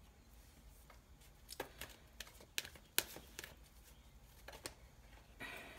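Faint handling of oracle cards on a tabletop: scattered light taps and clicks as cards are moved, the sharpest about three seconds in, and a short brushing slide of cards near the end.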